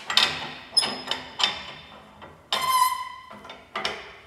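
Steel bench vise being worked to clamp a fitting: a series of sharp metal clanks, each ringing on, the longest about two and a half seconds in, typical of the sliding vise handle striking its end stops.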